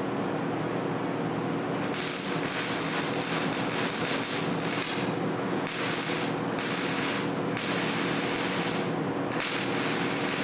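Wire-feed welder arc crackling as plug welds are laid on a sheet-steel floor panel. It starts about two seconds in and runs in stretches, broken by several short pauses as each weld is finished and the next begun. A steady hum runs underneath.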